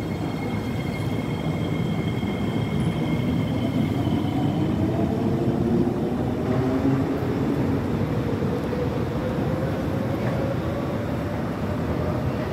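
R151 MRT train running with its traction motors whining, the pitch climbing steadily from a few seconds in as the train picks up speed, over a steady rumble of wheels on rail.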